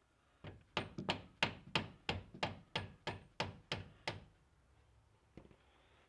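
Rubber mallet striking a Jeep Wrangler TJ's front wheel hub bearing assembly, knocking it loose from the steering knuckle. About a dozen quick, dull blows come roughly three a second and stop after about four seconds, with one faint knock near the end.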